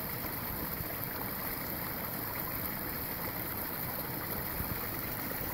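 Stormwater runoff pouring over a boulder grade control and splashing into a small rock-lined pool: a steady trickling rush of falling water.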